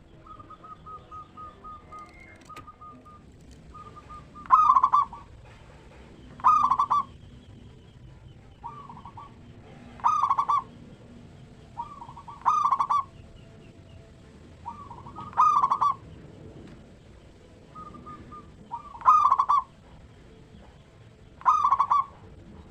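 Zebra dove (perkutut) song: soft, rapid trilling notes at first, then loud, short cooing phrases repeated about every two to three seconds, seven in all.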